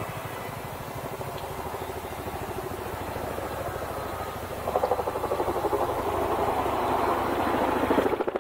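Boeing Chinook HC6 tandem-rotor helicopter flying toward and over the listener, its rotor blades beating in a fast, even pulse. The beat swells about five seconds in and keeps growing louder as the helicopter comes close.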